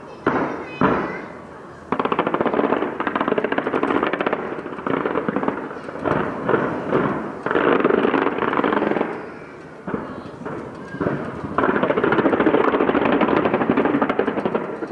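Fireworks: a few separate bangs in the first second, then long runs of rapid-fire crackling pops, with a short lull about ten seconds in before another dense run.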